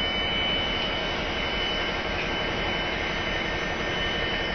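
Class 57 diesel locomotive engine running steadily close by, an even mechanical noise with a faint high whine over it.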